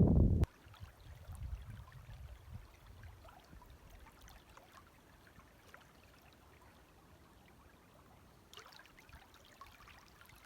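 Small waves washing and draining on the beach, faint and steady. A brief loud low rumble comes right at the start, and the hiss of the water grows about eight and a half seconds in.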